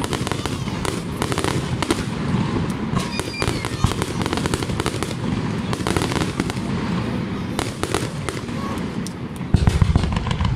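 Aerial fireworks display: a dense run of bangs and crackling shell bursts, with a louder cluster of booms near the end.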